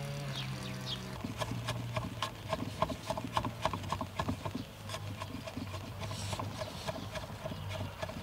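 Metal cookware clinking and knocking rapidly and irregularly, each knock ringing briefly at the same two pitches, starting about a second in, over a low steady hum.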